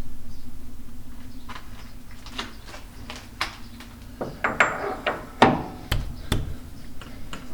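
A workshop machine running down, fading over about three seconds, followed by a string of sharp metallic clinks and knocks of metal parts and tools being handled.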